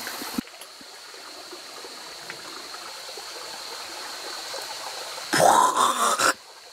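A shallow rocky stream running steadily, then about five seconds in a man lets out a loud shout lasting about a second, rising in pitch.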